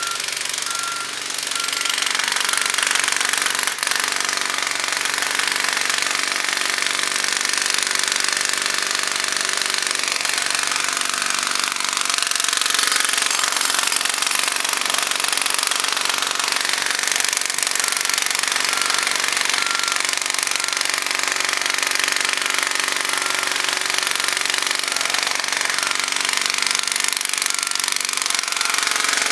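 Jackhammer hammering continuously at pavement, a dense, rapid clatter, with a heavy-equipment engine running underneath. A faint series of short beeps comes in twice, about two-thirds through and again near the end.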